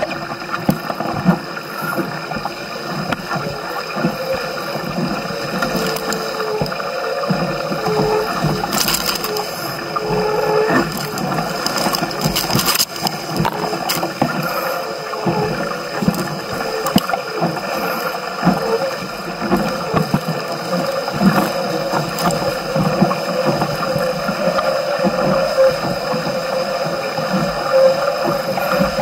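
Water rushing and splashing along the hull of a Musto Skiff sailing dinghy under way, with many small splashes in a steady wash.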